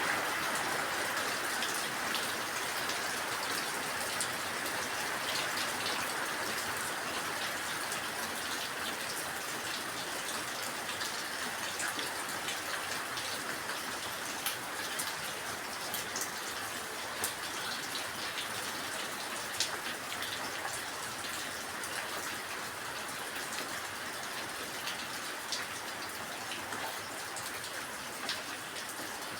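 Steady rain falling, an even hiss with many separate drops ticking and pattering close by.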